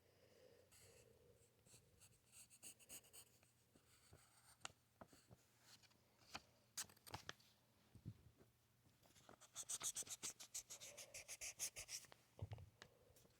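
Faint scratchy drawing strokes, scattered and irregular at first, then a quick run of rapid back-and-forth strokes for about three seconds near the end, like shading in.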